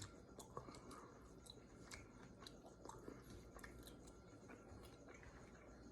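Faint chewing of ramen noodles and meat, with soft wet mouth clicks scattered throughout.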